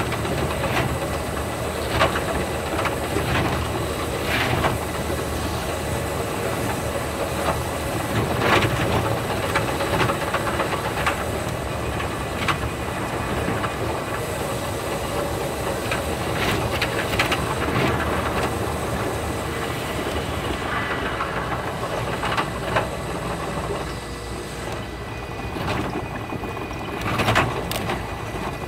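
Limited express electric train running, heard from inside the passenger car: a steady rumble and hiss of the wheels on the rails, with scattered sharp clacks.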